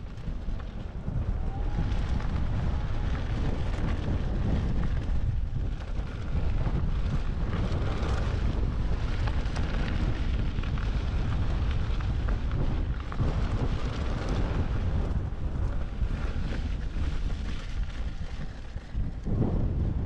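Steady wind buffeting on an action camera's microphone while riding, mixed with the rumble of an electric unicycle's tyre rolling over a sandy gravel trail.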